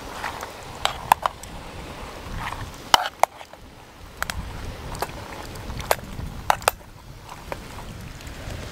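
A spoon stirring pasta, mince and tomato sauce in a metal camping pot, with irregular sharp clicks and knocks of the spoon against the pot.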